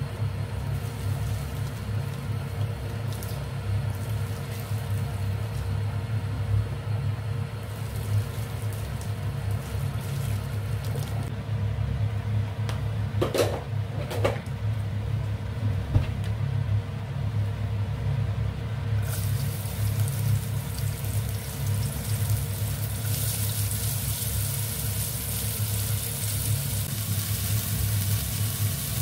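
A steady low hum throughout, with two short knocks about halfway through. About two-thirds of the way in, a hiss comes in and grows louder.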